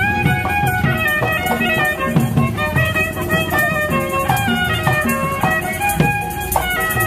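Traditional Betawi ondel-ondel street music: a bowed-string melody, fiddle-like, stepping from note to note over a steady hand-drum beat.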